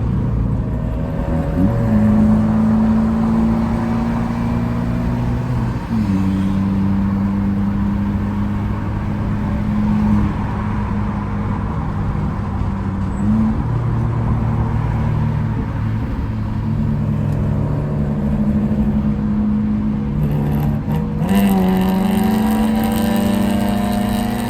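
Car engine and exhaust running at low, steady revs with a loud drone. Its pitch steps up or down about four times, around 2, 6, 13 and 21 seconds in.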